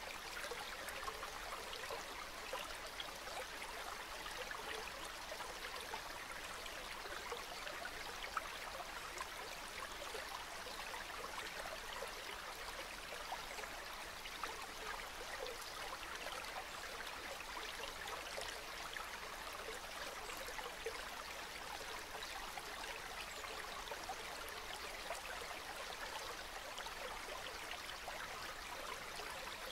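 Calm river water flowing steadily with a soft, even trickling babble.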